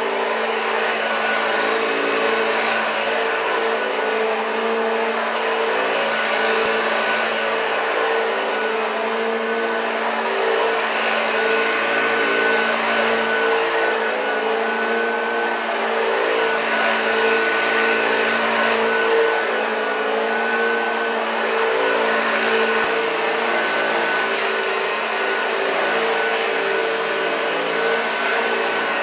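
1986 Hoover Junior U1206 upright vacuum cleaner running steadily, a continuous motor hum and rushing air with a high whine above it.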